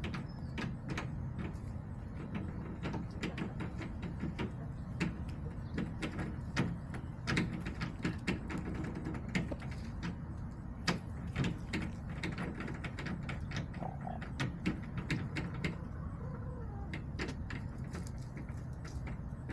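Chickens pecking and scratching: an irregular run of sharp taps, several a second, with a few faint hen clucks in the second half over a steady low background rumble.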